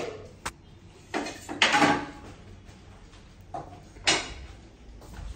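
Household handling noises: a sharp click about half a second in, then several short scuffing knocks, of the kind a door or drawer being worked makes.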